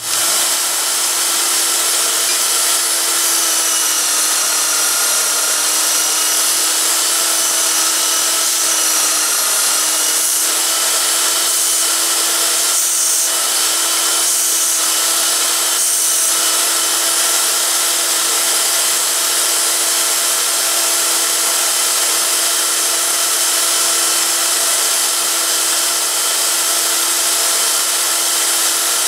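Bench-mounted belt sander running steadily with a constant motor hum, grinding the edge of a steel plate to take a little off. A few short rasping passes stand out about a third of the way in.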